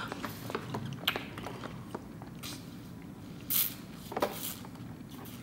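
Milk being sipped through a straw from a small carton: quiet sucking and swallowing with small clicks, and two short hissing sounds about three and a half and four seconds in.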